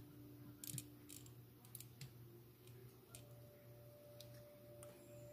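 Near quiet, with a low steady hum and a few light clicks as the model locomotive and a small clamp are handled on a silicone work mat. A faint steady whine comes in about three seconds in.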